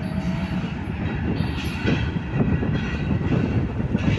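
Freight cars of a slow local freight train, led by a tank car, rolling along the track with a steady low rumble and irregular wheel clunks over the rail joints. A high steady squeal dies out about half a second in.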